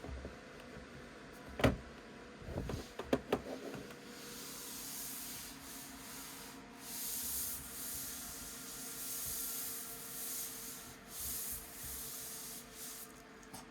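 Handling noise: a sharp knock, then a quick run of clicks, then several seconds of rustling and rubbing that swells and fades.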